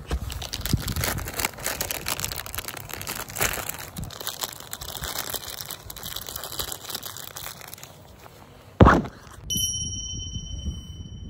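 Crinkly plastic food wrapper being handled and torn open by hand in a long run of irregular crackles. Near nine seconds in comes a short loud burst, then a bright bell-like ding that rings on for over a second.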